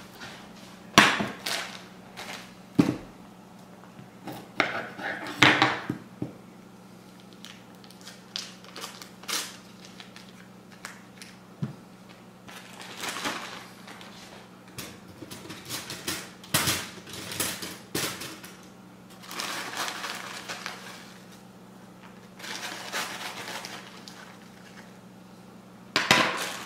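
Cooking sounds: a skillet and utensils knocking and clattering on a glass-top stove, the sharpest knocks in the first few seconds, then a plastic bag of brown sugar crinkling several times as it is opened and poured into the pan of butter. A low steady hum runs underneath.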